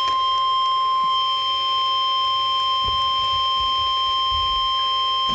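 NOAA Weather Radio warning alarm tone: a single steady high-pitched tone held without a break, heard through a weather radio receiver, signalling that a warning message follows.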